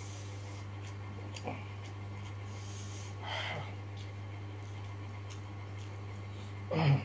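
A man's sharp breaths through the mouth from the burn of very hot chili: a short breath about three seconds in and a much louder one near the end, over a steady low hum.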